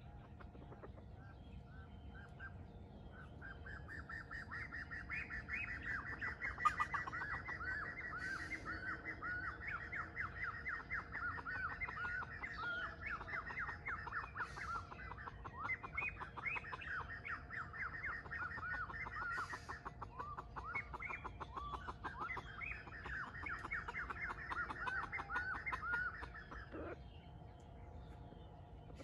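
Birds calling: a long run of quick, falling chirps that starts about three seconds in and stops abruptly about 26 seconds in.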